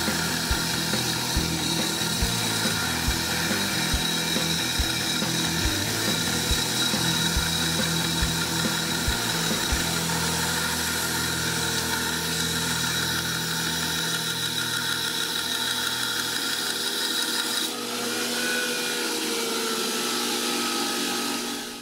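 Homemade 2x72 belt grinder, driven by a treadmill DC motor, grinding a steel wrench held on the platen: a steady abrasive hiss over the motor's whine. Near the end the sound changes as the steel comes off the belt, then it fades.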